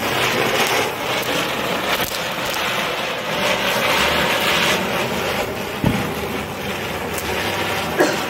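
A lit ground spinner firecracker (chakri) spinning on the ground and hissing steadily as it throws sparks, with two short pops, one about six seconds in and one near the end.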